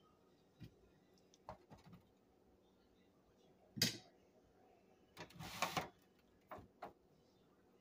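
Metal kitchen tongs clicking and knocking against a disposable aluminium foil pan as baked chicken wings are lifted out: a few faint scattered clicks, a louder clack about four seconds in and a short clatter about five and a half seconds in.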